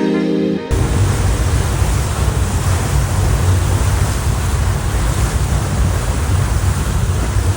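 Steady wind blowing on the microphone over a low, continuous rumble, after background music cuts off just under a second in.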